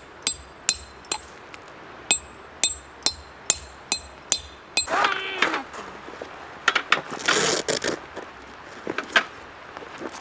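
Repeated hammer-like strikes on metal, each with a bright ring, about two a second: four strikes, a short pause, then seven more. A short voice follows about five seconds in.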